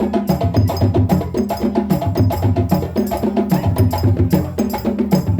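West African drum ensemble of djembes and drums playing a fast, driving rhythm: dense sharp hand strokes over deep, booming bass tones.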